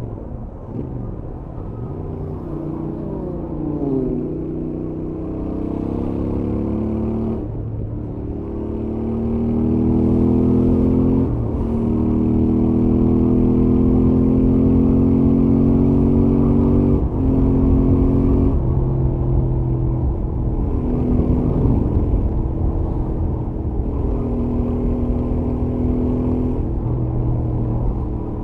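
Stock Royal Enfield Interceptor 650's 648 cc parallel-twin engine and exhaust on a highway run, the engine note climbing under acceleration and dropping back several times as it changes gear, louder in the second half.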